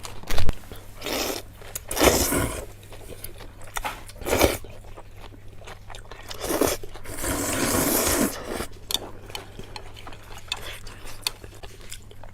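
A person eating chewy sesame-paste cold noodles close to the microphone: several short loud mouthfuls in the first few seconds and a longer one about seven seconds in, then quieter chewing with small wet clicks.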